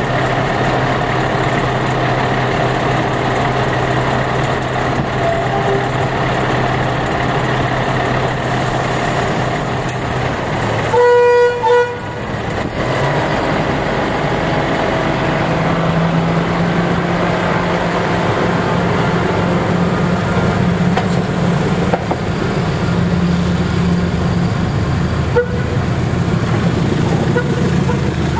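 Diesel locomotive's engine running as it approaches slowly, with a short horn toot about eleven seconds in; a few seconds later the engine note steps up.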